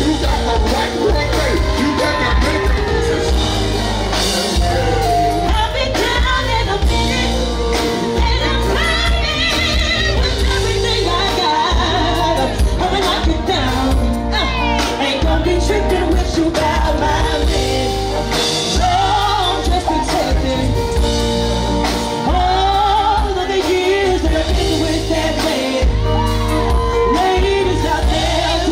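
Live band music with amplified singing over heavy bass and sustained chords, a male singer trading lines with a female singer.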